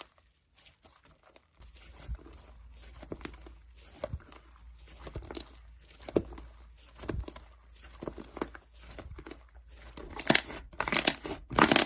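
Hands squishing and pressing slime: a run of crackling, popping clicks, loudest in a cluster near the end.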